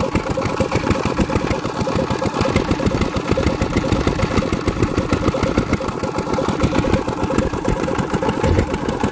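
Small single-cylinder diesel engine running steadily, with a fast, even chug of firing pulses, while it drives a water pump.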